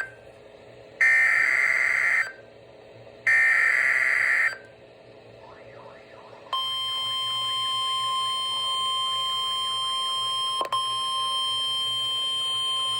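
Emergency Alert System SAME header data on NOAA Weather Radio: two buzzing digital bursts, each about a second long and a second apart. After a short pause, the steady 1050 Hz Weather Radio alert tone starts about six and a half seconds in and holds, with a brief click near the end. Together they signal an incoming warning broadcast.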